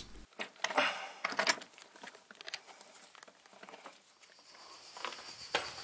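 Footsteps scuffing and crunching on a gritty concrete floor in a small concrete bunker room, in scattered soft steps and scrapes. A faint steady high whine comes in about four seconds in.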